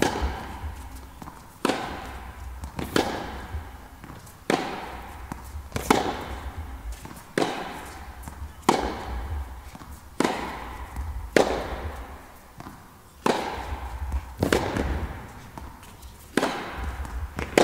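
Tennis ball hit back and forth in a long rally. Sharp racket strikes come about every one and a half seconds, each ringing with the echo of an indoor tennis hall.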